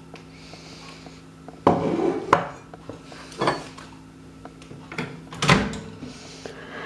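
Several sharp knocks and clatters of kitchen items being handled, the loudest about two seconds in and again near the end, over a steady low hum.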